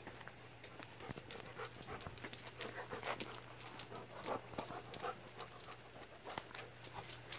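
A dog panting, with many short clicking steps on concrete.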